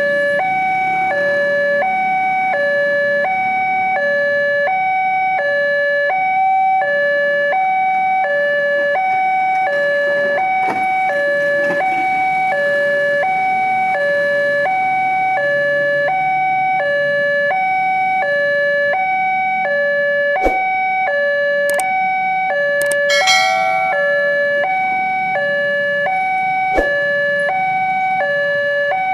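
Railway level-crossing warning alarm from the loudspeaker on the crossing signal: an electronic two-tone signal switching between a lower and a higher pitch about every half second, which means the barrier is down and a train is approaching. Motorcycle traffic runs faintly underneath.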